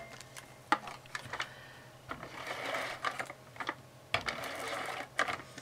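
ATG adhesive tape gun run along a paper border strip, laying tape in two short runs, about two seconds in and again about four seconds in. Light clicks and taps come as the strip and the gun are handled on the cutting mat.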